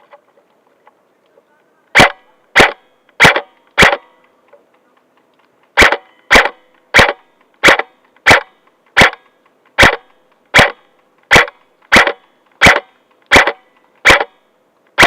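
Airsoft gun fired close by in single shots, each a sharp crack: four in quick succession, a pause of about two seconds, then a steady run of about fourteen more at roughly one and a half shots a second.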